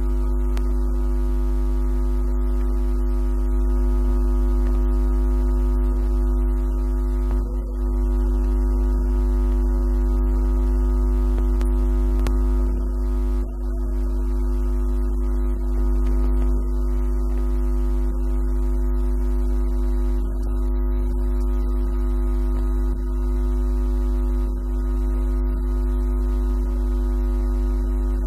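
Loud, steady electronic drone: a deep hum with several higher tones held unchanged throughout, dipping briefly twice.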